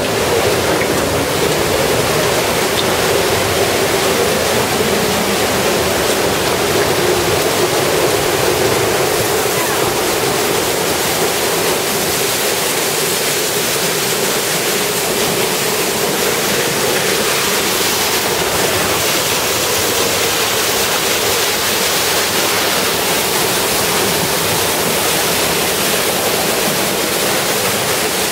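Tunnel Falls on Eagle Creek, a waterfall, rushing steadily into the pool below: a constant, even roar of falling water.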